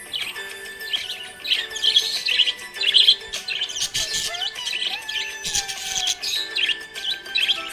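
Budgerigar chirping and warbling in quick clusters of short high notes, over background music with steady held notes.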